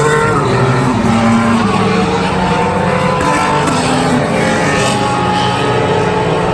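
A pack of IndyCars with 2.2-litre twin-turbo V6 engines running together at steady, moderate revs, several engine notes overlapping at different pitches with slow rises and falls.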